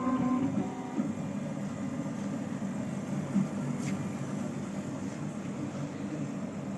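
Laser engraving machine running: a pitched motor whine fades out about half a second in, leaving a steady machine hum with a couple of light clicks.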